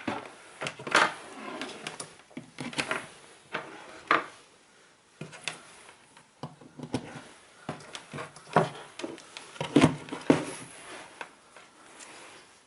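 Irregular clicks, taps and light knocks from a multimeter's test probes and a solenoid valve being handled, with soft rustling between them, as the probes are put on the coil's terminals for a resistance test.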